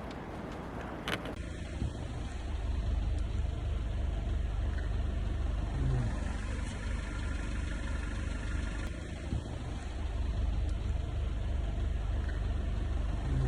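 Car engine idling steadily, a low rumble with an even pulse.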